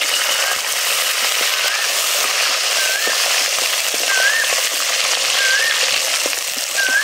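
Peeled garlic cloves frying in hot oil, with a steady loud sizzle and scattered crackles from spluttering mustard seeds.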